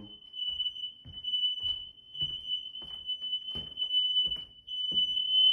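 Interconnected Kidde smoke alarms sounding together in one steady, high-pitched tone, all set off through their interconnection. Footsteps fall on the floor about every two-thirds of a second.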